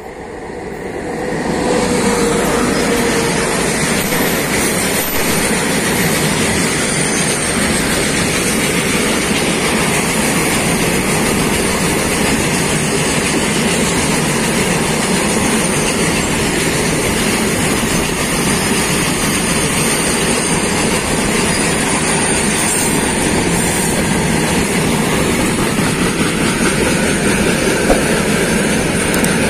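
Freight train passing close by: an Indian Railways electric locomotive, then a long string of open-top freight wagons, their steel wheels running over the rails. The noise swells over the first couple of seconds as the locomotive arrives, then stays steady and loud as the wagons roll past.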